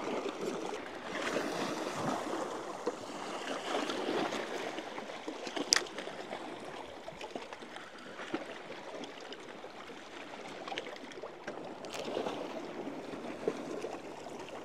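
Small waves washing and lapping against shoreline rocks, rising and falling in gentle surges. A single sharp click sounds about six seconds in.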